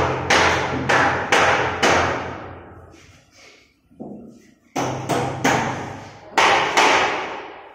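Hammer blows on an aluminium window frame being fixed in its opening: a quick run of five or six strikes about half a second apart, then a pause and a second run of about five. Each blow rings on and fades slowly in the bare, echoing room.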